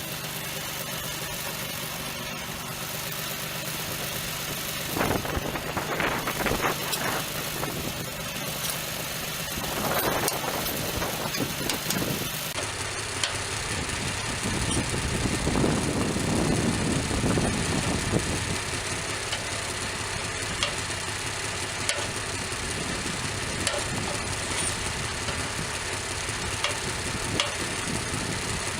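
A portable band sawmill's engine running steadily, with a few knocks and clatters in the first half. The sound's character changes abruptly about twelve seconds in.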